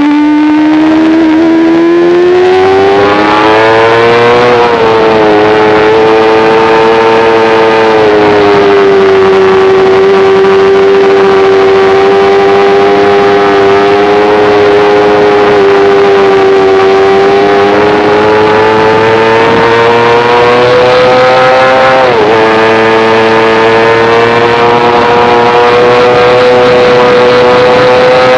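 Sport motorcycle engine running at high revs at full throttle on a race track. The revs climb over the first few seconds, then hold high with small rises and falls, and drop sharply and recover about 22 seconds in, as at a gear change.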